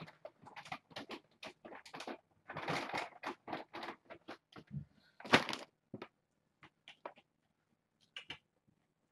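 Skritching of a stick scraped against a round cardboard cat scratcher, in short irregular strokes. The sharpest scrape comes about five seconds in, and the strokes thin out over the last few seconds.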